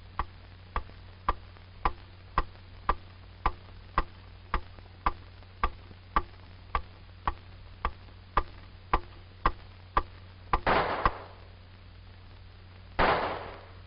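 Steady, even ticking at about two ticks a second for roughly ten seconds. Then two pistol shots about two and a half seconds apart.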